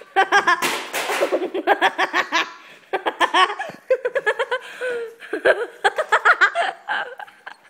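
Hearty laughter in quick runs of ha-ha bursts, with a short breathy rush about a second in.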